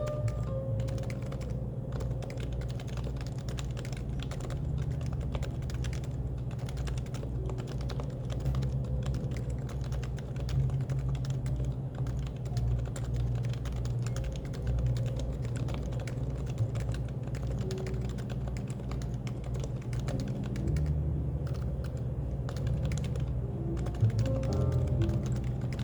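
Continuous typing on a Happy Hacking Keyboard (HHKB): a dense, unbroken run of key presses, over background music.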